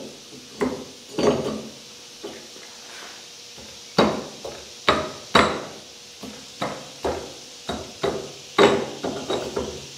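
Irregular metal-on-metal knocks with short ringing as the steel spindle of a Dana 60 front axle is worked onto the knuckle: two knocks, a pause, then a denser run of knocks from about four seconds in.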